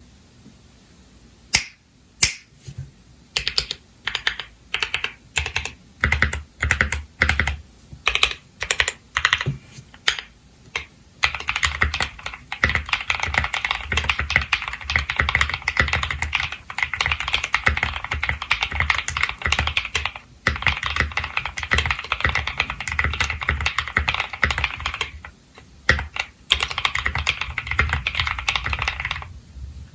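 Drop ALT High-Profile mechanical keyboard with lubed NovelKey Cream linear switches and a foam-dampened case being typed on. It starts with single keystrokes about twice a second, then fast continuous typing from about 11 seconds in, broken by a few short pauses.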